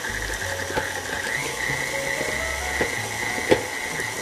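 KitchenAid Artisan stand mixer running, its flat beater creaming margarine and cream cheese in a steel bowl: a steady motor whine with a low hum and a few sharp clicks.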